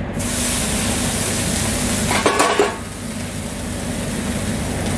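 Halloumi slices sizzling on a hot flat-top griddle as they are flipped over with a metal spatula. The sizzle starts suddenly, is strongest for the first two and a half seconds, then settles to a lighter hiss.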